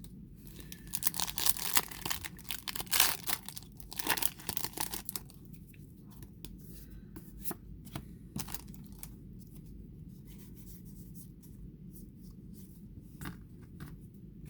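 Foil booster pack wrapper being torn open and crinkled for about four seconds, followed by sparse light clicks of the cards being handled.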